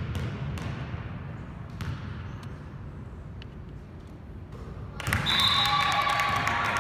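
A basketball bounced on a gym floor a few times, about once every half second to second, as a shooter readies a free throw. About five seconds in, a sudden louder burst of quick squeaks and scuffs as players' sneakers scramble on the court.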